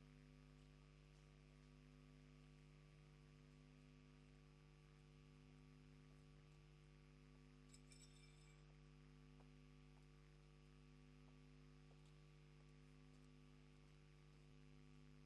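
Near silence: a faint, steady electrical hum, with a few faint clicks about eight seconds in.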